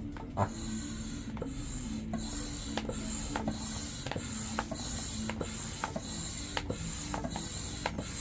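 Manual air pump being worked to inflate an inflatable kayak chamber: a regular stroke roughly every second or less, each with a rush of air and a click, over a steady low hum.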